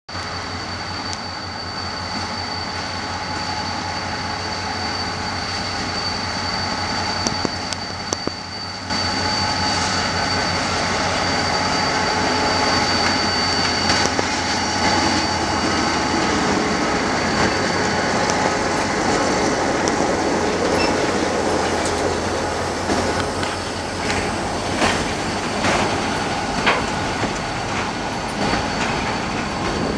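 GT22 diesel-electric locomotive pulling a train past at close range. Its engine runs with a steady low pulsing note, and a thin high whine is heard through the first half. In the last few seconds the wagons roll by and their wheels click sharply over the rail joints.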